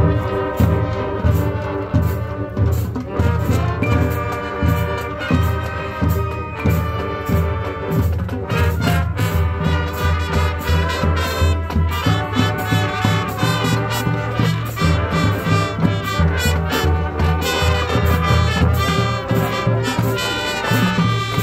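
Marching band playing a field show: brass over a steady drum beat, with a strong bass line.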